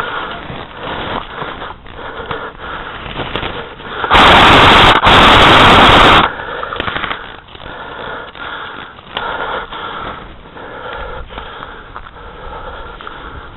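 Heavy breathing close to the microphone, with loud distorted blasts hitting the microphone twice between about four and six seconds in.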